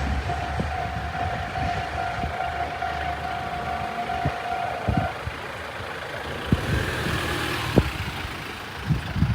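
Japanese railway level crossing alarm ringing and cutting off about five seconds in. Road vehicle engines run under it, with a few sharp knocks after it stops.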